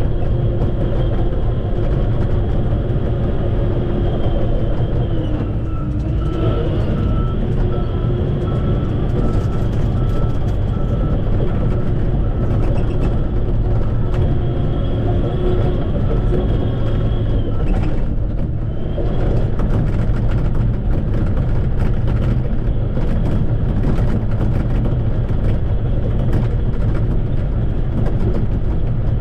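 Shantui bulldozer's diesel engine running steadily under work. Its pitch dips briefly twice, about six and eighteen seconds in, and a high tone pulses evenly through the middle stretch.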